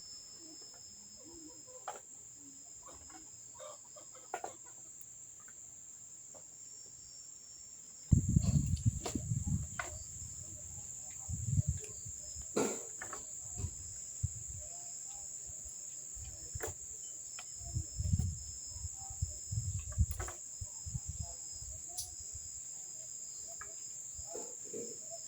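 Steady high-pitched insect chorus with chickens clucking now and then. From about a third of the way in, irregular low rumbles and a few sharp clicks come in on top.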